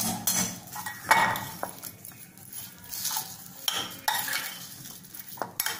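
A steel spoon stirring shredded cabbage in a glass bowl, scraping and clinking against the glass in irregular strokes.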